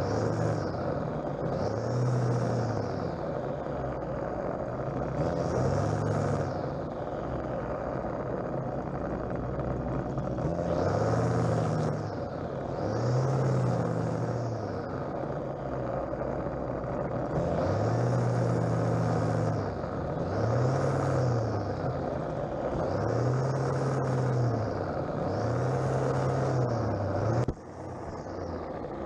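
String trimmer revving up and down in repeated bursts about every two seconds, each burst with a high swish of the spinning line cutting through grass. The sound breaks off briefly near the end.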